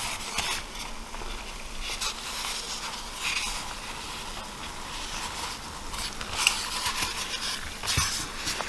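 Leftover elephant-toothpaste foam, still reacting, fizzing and crackling as a piece of styrofoam is pushed into it in a plastic tub, with irregular sharper crackles throughout.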